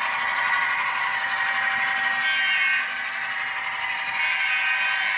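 HO scale model freight train running along the layout track: a steady whirring rattle of small wheels and running gear on the rails, with no bass. It gets a little quieter about three seconds in as the last cars move away.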